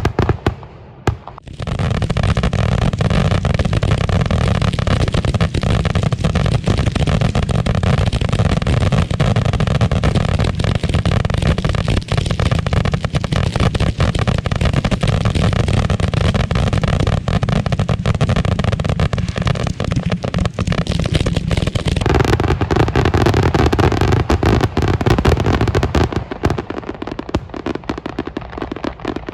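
Fireworks finale barrage: hundreds of aerial shells firing and bursting so close together that the bangs run into one continuous, loud rumble of booms and crackle. It drops away briefly about a second in, shifts in character about three-quarters of the way through, and thins out a little near the end.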